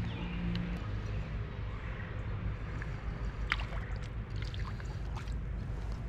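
Spinning reel being cranked to bring in a hooked fish: a steady low whirring with scattered sharp clicks, the sharpest about three and a half seconds in.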